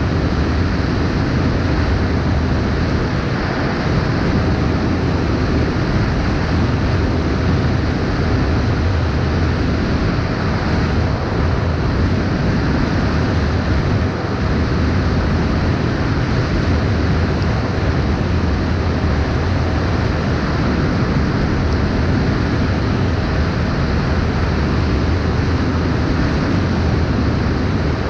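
Steady, loud rushing of wind buffeting an action camera's microphone, mostly low-pitched and unchanging throughout.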